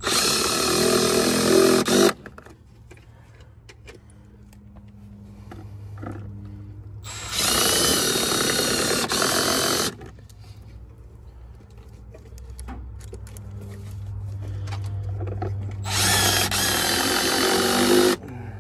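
Milwaukee M12 Fuel Surge hydraulic impact driver driving screws through a plastic outlet cover into the siding, in three runs of about two seconds each: at the start, about seven seconds in, and about sixteen seconds in, each stopping abruptly.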